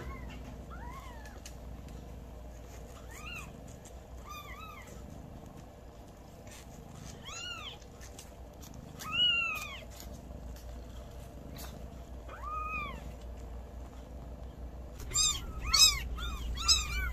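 Kittens mewing: single short, high mews every few seconds, then from about fifteen seconds in a quick run of many overlapping mews.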